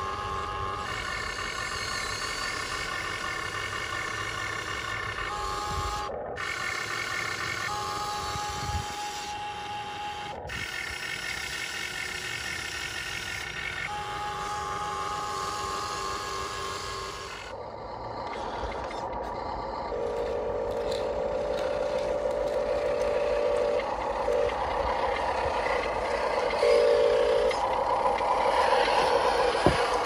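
RC model excavator's electric motors and gearboxes whining in starts and stops as the boom and bucket move. After about 17 seconds a lower whine comes in shorter runs and a rougher noise builds toward the end.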